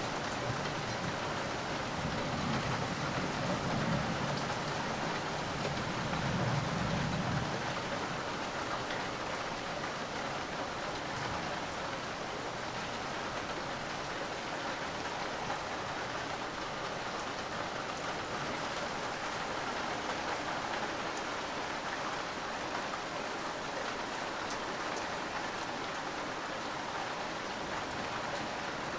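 Steady rain hissing during a thunderstorm, with a low rumble of thunder rolling for a few seconds near the start.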